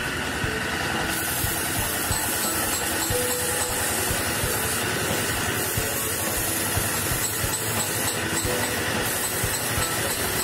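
Motor-driven wood lathe running steadily with a fast rattling clatter, and the hiss of sandpaper held against the spinning wooden spindle, coming and going as it is pressed on.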